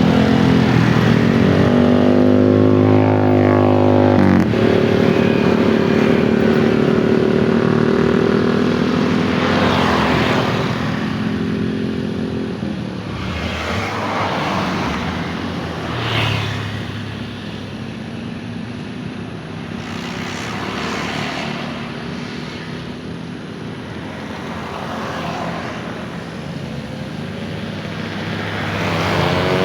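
Engine noise from passing vehicles. One engine drones steadily with a slowly shifting pitch for the first dozen seconds, then several more pass by one after another.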